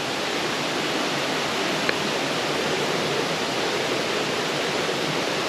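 Steady rush of a stream tumbling over rocks, with a single brief tap about two seconds in.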